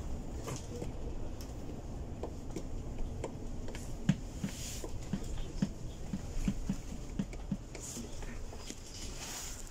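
Cabin of a Mercedes-Benz Citaro articulated city bus rolling slowly: a steady low rumble of engine and road, with a run of light, irregular clicks and rattles about halfway through.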